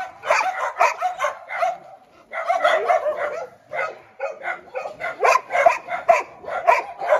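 A big pack of shelter dogs barking and yipping at once, overlapping barks in quick succession, with brief lulls about two and four seconds in.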